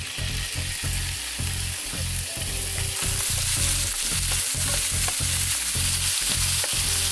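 Diced raw chicken sizzling in a hot electric frypan while being stirred with a wooden spoon; the sizzle grows louder about three seconds in. A low, regular pulsing runs underneath.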